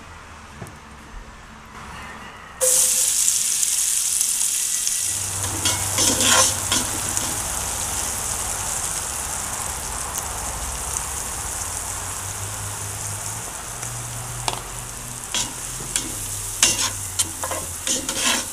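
Chopped onions sizzling in hot bacon fat and oil in a cast-iron Dutch oven, with a spatula scraping and stirring them against the pot. The sizzle comes in suddenly about two and a half seconds in, with scattered scrapes of the spatula on the iron.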